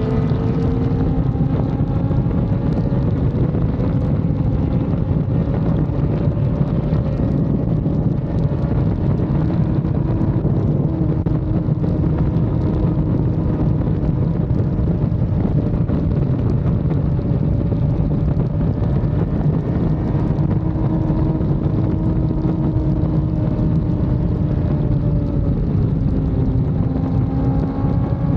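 Kawasaki ZX-10R's inline-four engine running steadily at high highway speed, its pitch rising and falling slightly with the throttle, under heavy wind rumble on the microphone.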